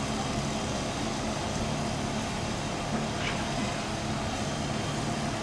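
Steady motor-vehicle noise, a low engine hum under an even rush of road and traffic sound.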